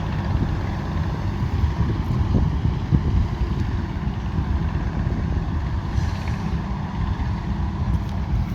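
Combine harvester running steadily under load, a continuous deep engine and machinery rumble.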